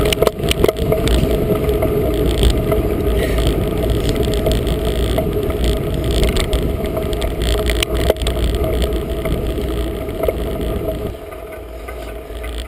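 Wind buffeting the GoPro's microphone and tyres running on tarmac as a Felt Edict Elite bicycle rides fast downhill, with a few sharp clicks. The noise quietens about eleven seconds in.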